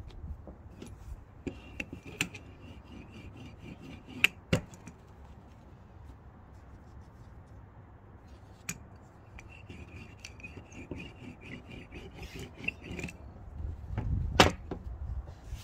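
Soft rubbing and light taps of fingers handling thin dough circles and scraps on a floured wooden board, with a few sharp clicks, the loudest near the end. A high fluttering trill sounds twice in the background, and wind rumbles on the microphone near the end.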